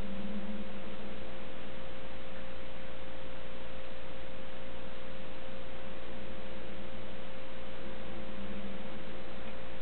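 A steady electrical hum holding one constant tone over an even hiss, with no other sound.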